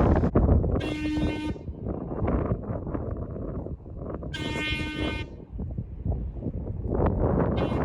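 Locomotive air horn blown off a portable air tank: two short blasts about three and a half seconds apart, each under a second long, with the start of a third near the end. Wind noise on the microphone runs underneath.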